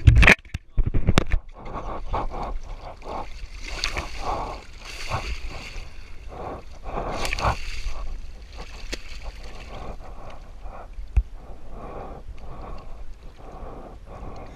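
A hooked snook thrashing at the side of a boat, its splashing and the sloshing of the water against the hull coming in repeated bursts, then settling to lighter sloshing once hands grip it by the jaw. A few sharp knocks from the camera being handled open the sound.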